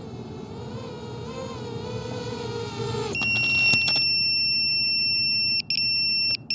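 FPV freestyle quadcopter's motors and propellers whining with a wavering pitch, which cuts off about three seconds in with a few clicks. About a second later a loud, steady, high beep starts from the drone's onboard buzzer. It breaks off briefly once and ends in a couple of short beeps.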